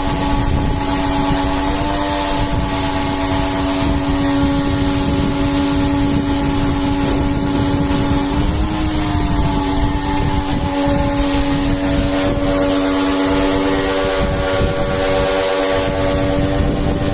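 A motor running at a steady pitch, with a brief rise and fall in pitch about nine seconds in, over a rushing noise like wind.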